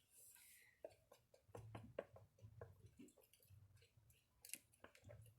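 Faint scattered clicks and soft squishes of slime ingredients being handled.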